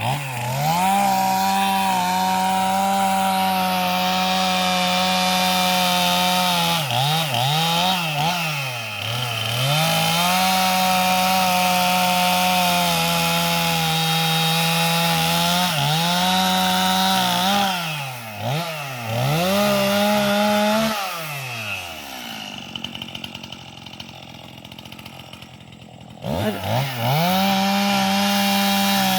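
Chainsaw cutting wood: the engine is held at high revs through long cuts, dropping back and revving up again between them. It falls to a low idle for several seconds and then revs hard again near the end.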